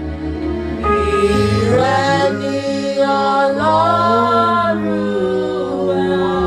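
A voice singing a slow worship melody, entering about a second in, over sustained low held chords.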